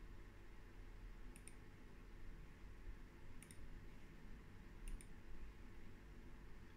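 Faint computer mouse clicks: three quick double clicks, spaced about a second and a half to two seconds apart, over a low steady hum.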